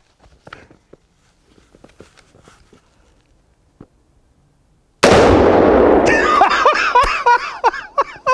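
An exploding target set off by a shot from a 5.56mm AR-15: one sudden, very loud boom about five seconds in that dies away over about a second, followed by a voice.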